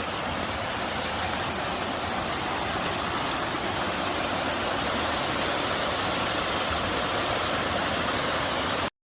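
Steady rushing road noise from highway traffic, swelling slightly and cutting off suddenly near the end.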